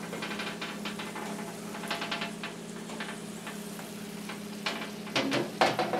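Smoked sausages and kielbasa sizzling and popping on a baking rack in a hot oven, a steady crackle of small pops. Near the end come a few louder knocks as the sheet pan is drawn out of the oven.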